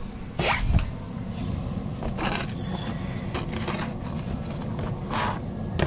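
Short scrapes and rustles in a plastic tub as food dishes and egg crates are moved around, five or six in all, over a steady low rumble.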